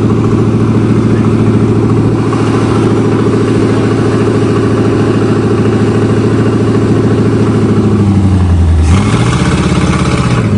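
1976 Chrysler New Yorker's V8 engine idling loud and steady, just started after sitting about three months. Near the end the idle sags briefly in pitch and then recovers.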